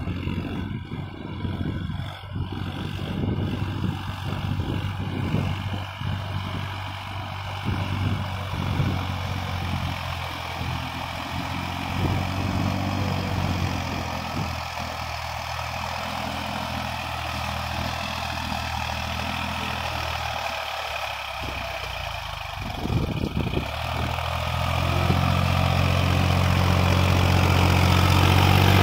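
Solis tractor's diesel engine running steadily as it drives through a flooded paddy field on cage wheels. It grows louder over the last few seconds as it comes close.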